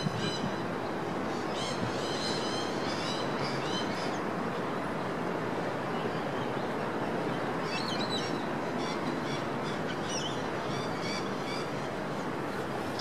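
Steady hum of city traffic with birds chirping over it in quick repeated calls: a spell of chirps about two seconds in, and another from about eight seconds.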